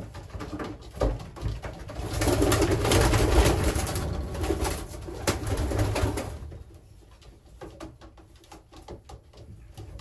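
Racing pigeons flapping their wings in a loud flurry as they are chased and one is caught by hand, from about two to six seconds in, then dying down.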